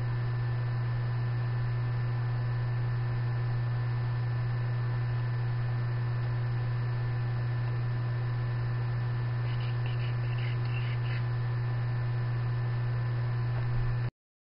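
Steady low electrical hum with background hiss, with a few faint clicks about ten seconds in; it cuts off abruptly just before the end.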